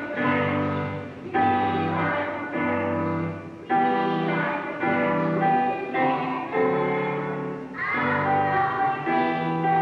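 Children's choir singing a song in held notes with instrumental accompaniment.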